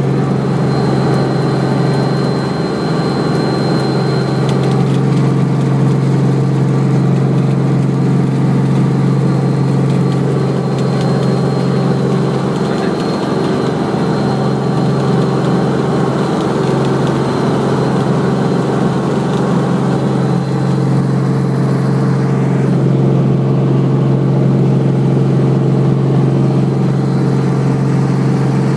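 Helicopter engine and rotor running steadily: a constant loud drone with a strong low hum.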